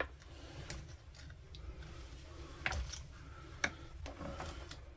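Faint clicks and scraping of a small hand tool working the rubber fuel lines off a two-stroke strimmer carburettor's fuel pipes, with two sharper clicks near the middle.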